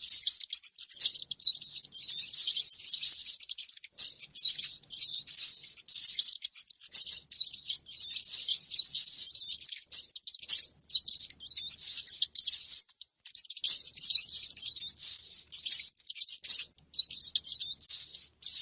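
Rapid, high-pitched rodent squeaking and chirping, a dense stream of short squeaks with brief gaps, of the kind played as a lure to draw rats into a trap.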